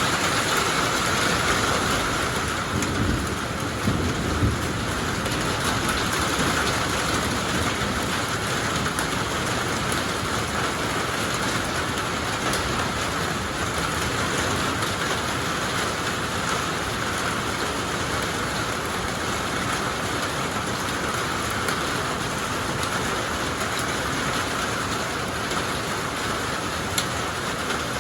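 Steady heavy rain falling during a thunderstorm, with a brief low rumble about three to four seconds in.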